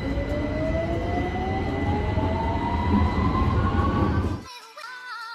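London Underground train running inside the carriage: a heavy low rumble with a motor whine rising steadily in pitch as the train picks up speed, and a steady high tone over it. It cuts off abruptly about four and a half seconds in, giving way to background music.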